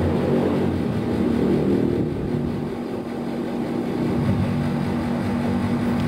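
Steady machine hum: a low drone with one steady tone, running without change and with no speech over it.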